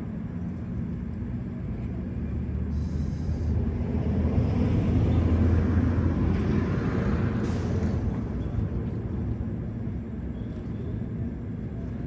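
Low engine rumble from a passing vehicle, building from about three seconds in, loudest around the middle and fading again.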